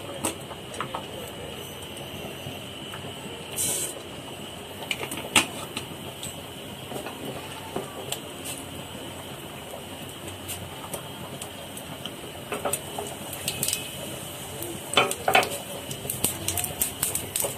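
Mustard and fennel seeds sizzling in hot oil in a nonstick pan, a steady hiss with scattered pops and crackles that come thicker near the end as the mustard seeds start to splutter.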